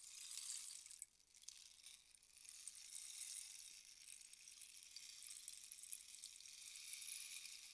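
Rainstick being tilted, its pebbles trickling down the inside with a soft, rain-like hiss. The trickle fades out about a second in, then picks up again as the stick is turned and runs on steadily.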